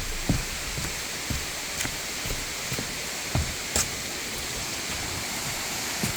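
Steady rushing of water, rain together with a waterfall, with a few scattered dull knocks over it.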